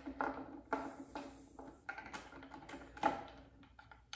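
Light, scattered clicks and taps of small metal parts, screws and a bit, being handled by hand at a motorcycle handlebar control housing, about one or two clicks a second, the sharpest about three seconds in.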